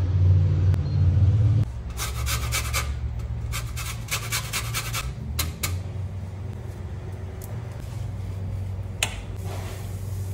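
Lemon being grated on a metal box grater: a run of quick strokes over about four seconds, against a steady low hum. A single sharp click comes near the end.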